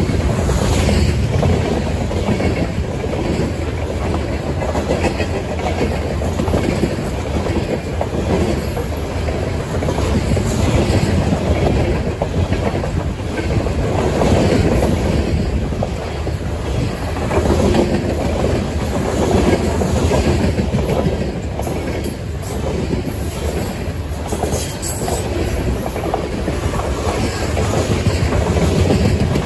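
Freight train of open-top coal cars rolling past at close range: a continuous rumble and rattle of the cars with the clickety-clack of wheels over the rail joints.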